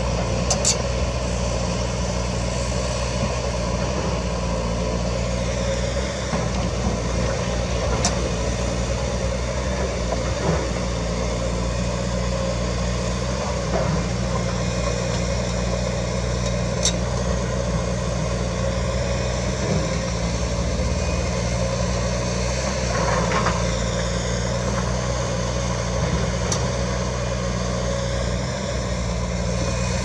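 Caterpillar 320D2 hydraulic excavator's diesel engine running steadily as it swings and digs in limestone, with a few sharp knocks from the digging and a brief change in engine pitch about two thirds of the way through.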